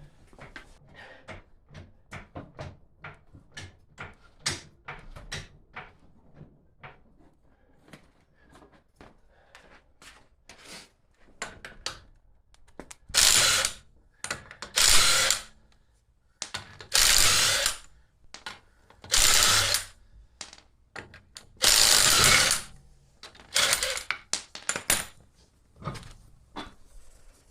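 Ratchet clicking in short runs on the wheel's lug nuts, then a power tool, likely an impact wrench, run in about six loud bursts of a second or so each.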